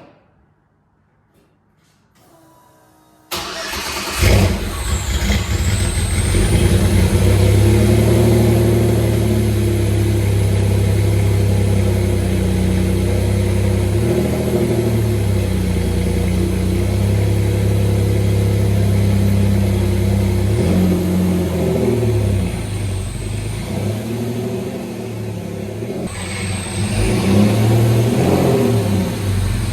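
A 1986 Pontiac Fiero's engine starts abruptly about three seconds in and keeps running, its speed shifting a few times.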